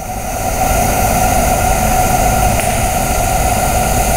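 Ridable live-steam locomotive venting steam: a steady rushing hiss that swells up over the first second and then holds level.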